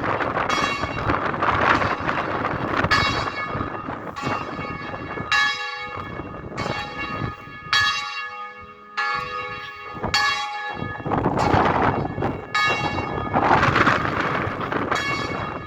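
Bells ringing in a steady sequence of strokes, a little under one a second, each note ringing on over the next. Gusts of wind buffet the microphone, strongest near the start and again in the last few seconds.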